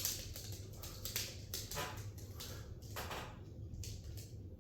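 A squeegee working wet window-tint film on glass: short irregular swishing strokes with light taps, about one a second, over a low steady hum.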